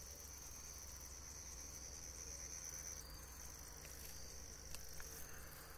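Faint, steady, high-pitched insect trill, with a slight shift in pitch about three seconds in.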